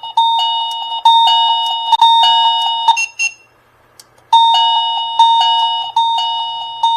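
Reolink doorbell chime playing its electronic ring tune loudly, a run of notes alternating between two pitches about three a second. It plays twice, with a short beep between, as its volume settings are tried.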